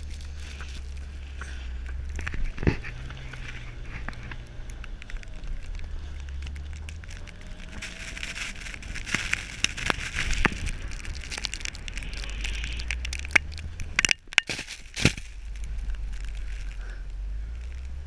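Tyres of a Mitsubishi Lancer Evolution X churning through snow, with snow spraying and crackling against the outside-mounted camera, over a steady low rumble. Sharp knocks come about two and a half seconds in, and a cluster of them about three-quarters of the way through.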